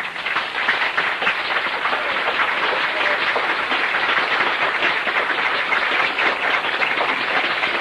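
Audience applauding: many hands clapping, building up in the first second and then holding steady.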